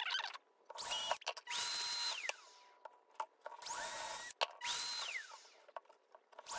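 Cordless drill with a 1/4-inch brad point bit boring holes through MDF: the motor whines up to speed, runs briefly and winds down, in several short bursts with a few clicks between.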